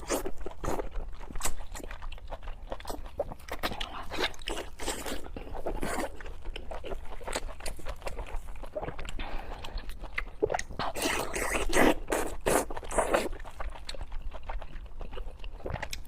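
Chewing and crunching of sweet and spicy pork with green vegetables, a run of irregular short crackles and clicks, with a louder, denser stretch of crunching a little after the middle.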